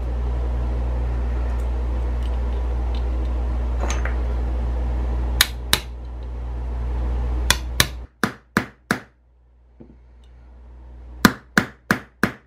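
Small hammer tapping a pin punch to drive the safety sear pin out of a Savage 720 shotgun's trigger assembly: sharp metallic taps in short runs, two, then six, then five, over a low steady hum that stops about two-thirds of the way through.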